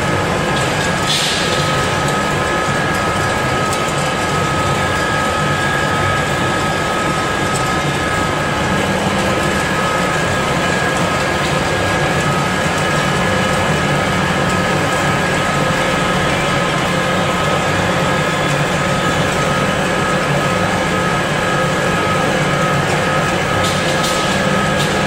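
Yulong vertical ring-die pellet mill running under load while pressing mushroom dreg into pellets: a loud, steady drone with a constant high whine. A short hiss sounds about a second in and again near the end.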